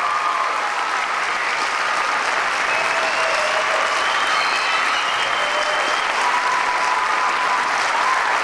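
Theatre audience applauding steadily, with a few whoops rising above the clapping.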